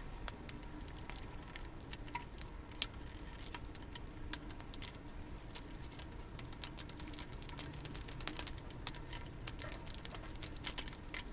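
Snap-off utility knife scoring and cutting a plastic blister pack on its cardboard backing card, with the packaging handled and crinkled, played fast-forward: a dense, irregular run of quick clicks and crackles.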